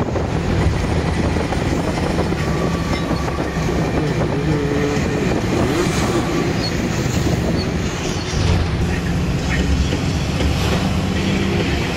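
A long-distance bus in motion, heard from inside the cabin: steady engine drone and road noise.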